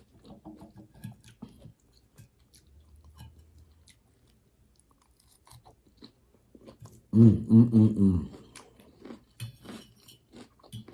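Close-miked chewing of a mouthful of raw garden-salad vegetables, a run of short, wet, crisp mouth sounds. About seven seconds in comes a brief, loud voiced sound from the eater lasting about a second.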